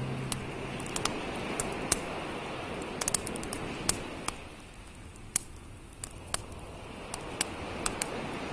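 Wood campfire crackling, with sharp irregular pops, a quick cluster of them about three seconds in, over a steady hiss.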